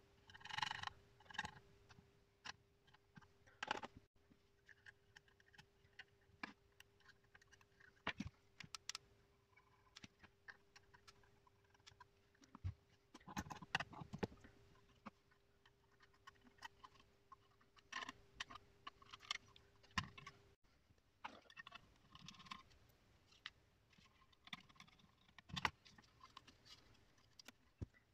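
Small metal hardware being handled and fitted by hand onto a radio panel: irregular light clicks, taps and scrapes of screws, nuts and solder lugs.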